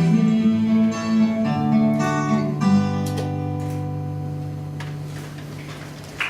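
Acoustic guitar playing the closing chords of a song, a few changing strummed chords and then a last chord left to ring and slowly fade out.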